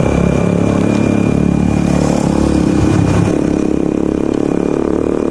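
Motorcycle engine running under way, its note dropping a little about three seconds in.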